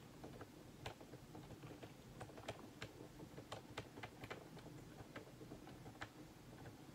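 Faint typing on a computer keyboard: irregular light clicks, a few a second, over a low room hum.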